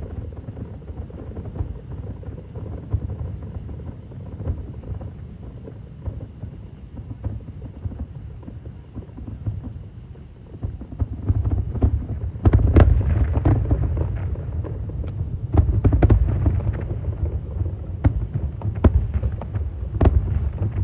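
Fireworks going off at a distance: a rolling low rumble of booms, which turns louder and denser about halfway through with a rapid series of sharp bangs.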